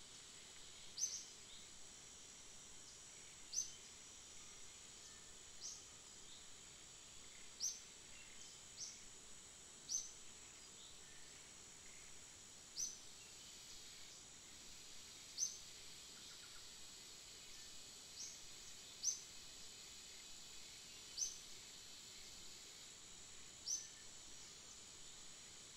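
Tropical forest ambience: a steady high insect buzz, with a short high chirp repeated about a dozen times, every two to three seconds.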